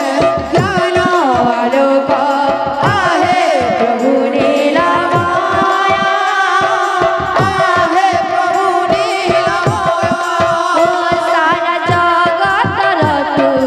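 Odia kirtan music: a voice singing a wavering melody over barrel drums (mridanga/khol) played in a fast rhythm, the deep drum strokes dropping quickly in pitch.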